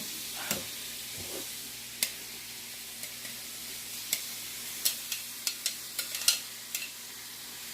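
Marinated beef steak sizzling steadily in a hot pan, with a utensil clicking against the pan a number of times, most often in the second half as the meat is stirred.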